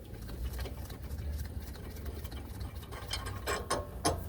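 Ratchet wrench clicking rapidly as a wheel hub assembly's mounting bolt is backed out, with a few sharper metal clicks near the end, over a steady low hum.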